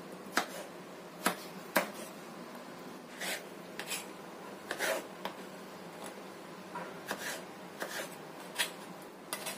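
Kitchen knife slicing peeled raw potatoes on a bamboo cutting board: irregular sharp knocks as the blade cuts through and strikes the board, roughly one or two a second.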